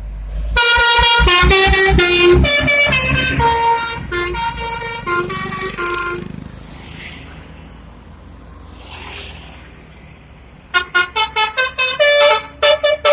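Telolet horn of an Indonesian bus: a multi-tone musical air horn playing a melody of short notes that change pitch for about five seconds, then, after a pause, a second quicker run of short notes near the end.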